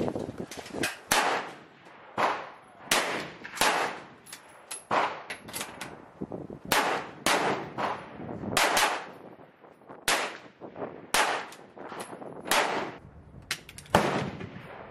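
Gunshots: a rapid string of more than a dozen sharp reports, some only about half a second apart, each with a short echoing tail.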